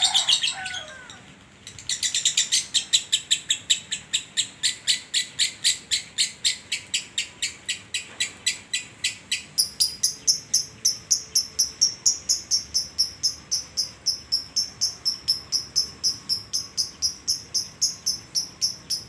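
Lovebird ngekek: one long unbroken run of rapid, evenly repeated chattering notes, about five a second. About halfway through, the notes turn higher and thinner but keep the same pace.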